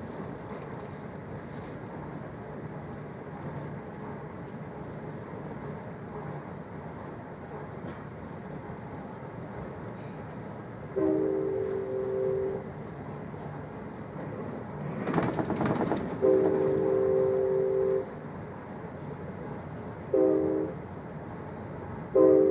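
Amtrak Capitol Corridor train running with a steady rumble, heard from inside the car, while its multi-note horn sounds the grade-crossing signal: two long blasts, a short one and a long one, warning of a road crossing ahead. A brief loud rush of noise comes between the second and third blasts.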